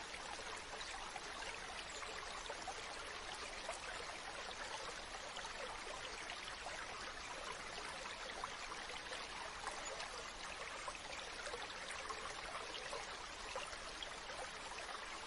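Stream water running steadily: a continuous rush with fine splashing throughout.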